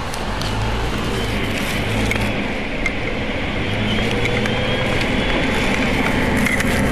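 Dennis bus's Cummins M11-250E six-cylinder diesel engine idling steadily, a low hum with a faint whine above it, growing slightly louder toward the end.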